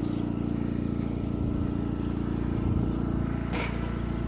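Vehicle engine running steadily at idle, a low even drone, with a couple of short knocks near the end.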